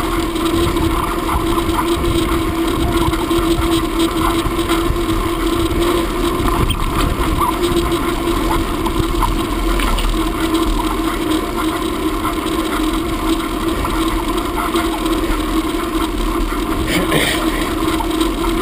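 A steady engine drone that holds the same pitch throughout, with a short scrape near the end.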